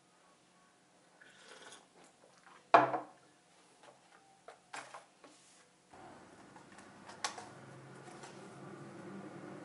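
Items being set down and moved about on a tabletop: one sharp knock about three seconds in, then lighter clicks and taps. A steady low hum comes in about six seconds in.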